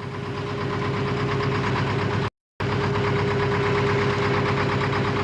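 Fishing boat's engine running steadily with a constant hum and low rumble. It fades up over the first second, and the sound drops out completely for a moment a little past two seconds in.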